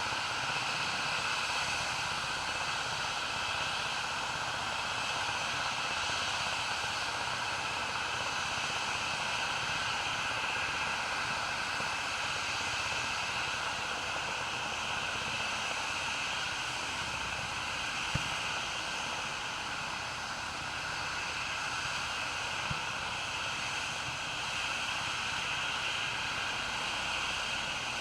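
Helicopter running with a steady, even whooshing hiss and a faint high whine, broken only by two brief clicks about two thirds of the way through.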